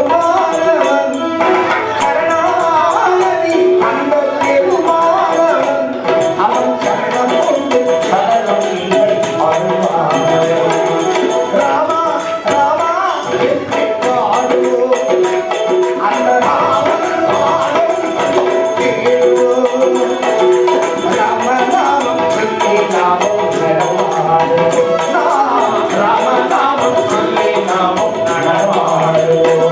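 Live Hindu devotional bhajan: male voices singing over a steady drone, with a dholak drum played by hand in a continuous rhythm.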